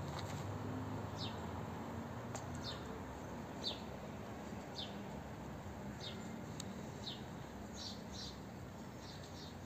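A small bird calling, short high chirps that slide downward, repeated about once a second and sometimes in quick pairs, over a steady low background rumble.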